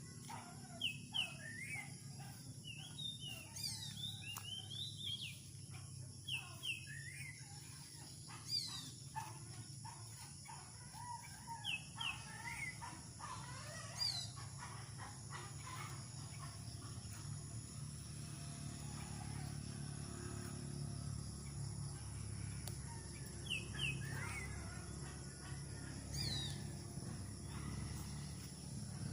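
Several birds chirping and calling in short, varied notes, busiest in the first half, with a high falling call repeated every few seconds. Under them runs a steady high chorus of crickets and a low background rumble.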